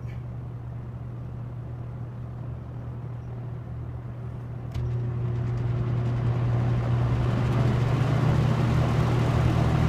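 Superlectric box fan's plastic-shelled motor running on low with a steady hum. Nearly five seconds in there is a click, and the hum and the rush of air grow steadily louder as the fan speeds up.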